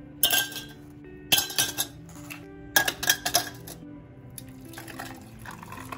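Ice cubes dropped by hand into a double-walled drinking glass, clinking against the glass and each other in three bursts about a second and a half apart. Soft background music plays underneath.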